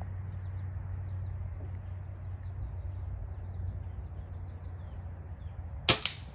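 Faint birds chirping over a steady low hum, then near the end a single sharp crack of an air rifle shot, followed a split second later by a second, fainter click.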